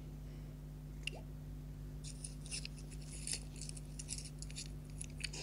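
Faint, scattered clicks and light rattles of small objects being handled, thickening from about two seconds in, over a steady low electrical hum.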